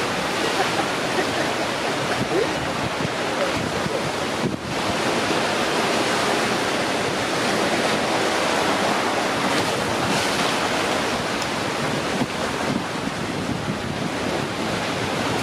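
Steady rushing noise of surf and wind on the microphone, with a brief drop about four and a half seconds in.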